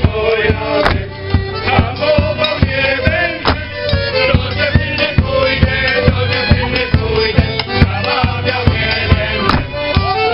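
Polish folk band playing a lively tune from the Rzeszów-region repertoire: violin and accordion over a steady bass-drum beat, about three strokes a second.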